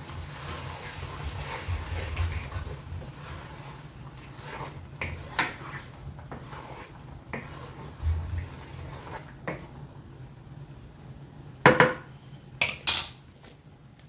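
Cooking utensils clinking and scraping against a skillet and dishes, with a faint sizzle of the simmering cream sauce that fades over the first few seconds. Two sharper clinks come near the end.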